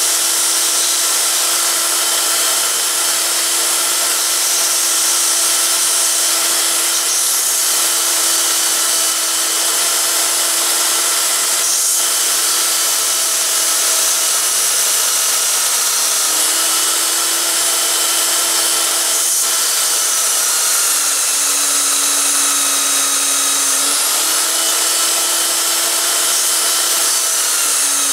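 Bench belt sander running while the edge of a steel part is ground against the belt: a steady motor hum under a dense high hiss. The hum dips lower in pitch a few times in the later part.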